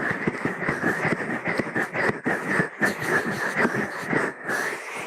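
Ear massage on a binaural ASMR microphone: close, dense, crackly rubbing and scratching over the mic's ears. It cuts off suddenly near the end.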